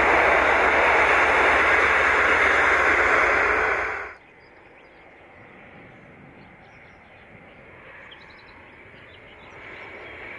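Loud, steady rumble and rail noise of a V/Line N class locomotive-hauled passenger train rolling past, cut off abruptly about four seconds in. After that there is quiet open-country background with faint bird chirps. Near the end it slowly builds as the next train approaches.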